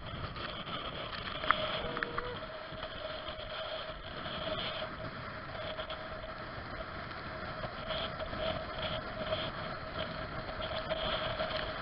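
The towing motorboat's engine running at a steady pitch over the rush of water and wind, muffled through a waterproof camera housing. A sharp click sounds about a second and a half in.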